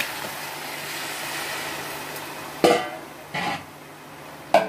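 Water pouring into a steel pot of rice and moong dal fried in hot mustard oil, a steady hiss. In the last two seconds come three short, sharp, louder sounds as more water goes in.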